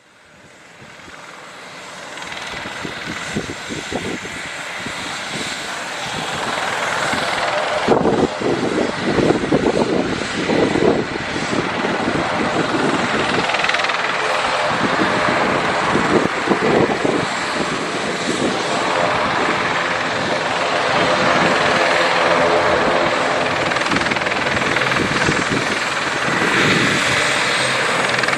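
Aircraft turbine engines running, steady tones over a rushing noise. It swells up from near silence over the first several seconds, then holds steady and loud.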